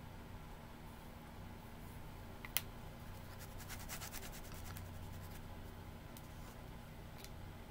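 Light tapping and scraping of a wooden popsicle stick against a plaster-filled silicone mould and mixing cup. There is one sharp tap about two and a half seconds in, then a quick run of faint clicks and scratches for about two seconds, over a low steady hum.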